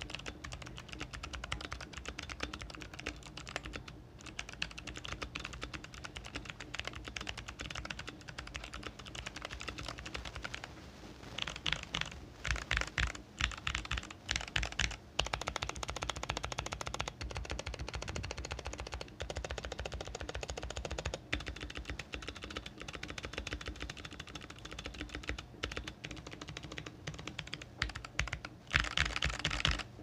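Redragon Rudra mechanical keyboard with clicky Kailh Box White switches, tape-modded, foam-dampened and with lubed stabilizers, typed on fast and steadily. Each keystroke gives a crisp click. A run of louder, separate strokes comes about a third of the way in and again near the end.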